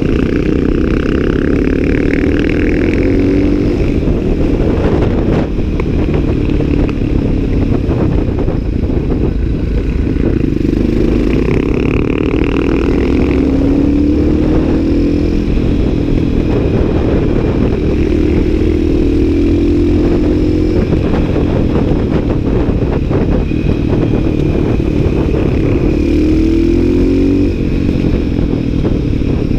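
Supermoto motorcycle engine running under way. Its pitch climbs and drops back several times as it accelerates through the gears, over a steady rush of wind noise.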